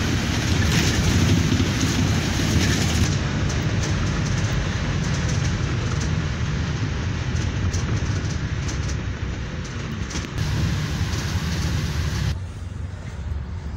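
Steady engine and road rumble of a moving double-decker bus, heard from inside, with a hiss of tyre and road noise. The sound changes abruptly about three seconds in and again near the end.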